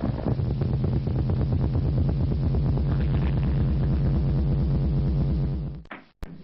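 Drum roll: a fast, steady roll of drum strokes that stops abruptly about six seconds in, followed by a sharp click.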